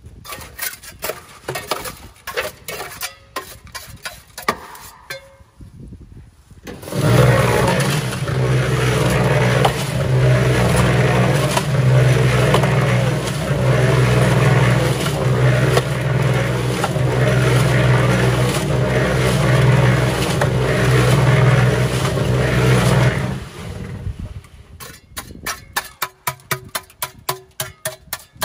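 A steel trowel scraping and knocking in the drum of a Harbor Freight electric cement mixer full of wet concrete mix. About seven seconds in, the mixer starts and runs for about sixteen seconds: a steady motor hum under the churn of the mix tumbling in the turning drum, which then cuts off. Near the end come quick, repeated trowel scrapes against the drum.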